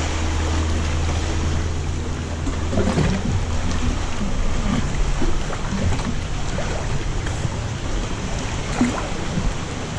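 Sea water lapping and sloshing around a canoe in a rocky sea cave, with small splashes now and then. A low steady hum underneath fades out about two and a half seconds in.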